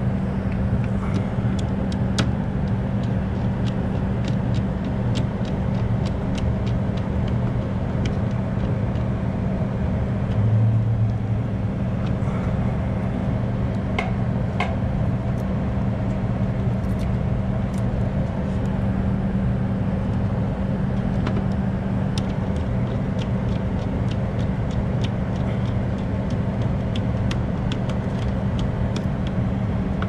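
A steady machinery hum with a constant low drone, briefly swelling about ten seconds in. Scattered small clicks and taps come from wires and a screwdriver being worked at a circuit breaker in a metal electrical panel.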